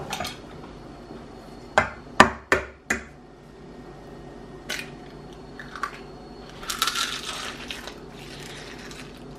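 A metal spoon clinking against a saucepan and a stainless steel bowl: four sharp clinks in quick succession about two seconds in, a couple of lighter taps later, and a short rustle about seven seconds in, over a steady low hum.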